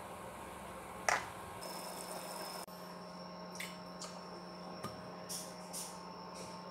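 A sharp click about a second in as grey oyster mushrooms are torn apart with a knife over a plate. Then an induction hob heats an empty non-stick frying pan with a faint, high, steady whine and a few light ticks.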